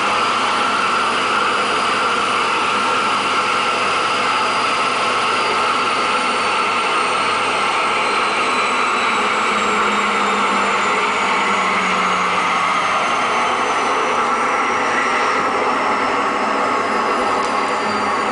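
Washing machine running its spin cycle: a loud, steady whir of the drum and motor, with a high whine that slowly falls in pitch through the second half.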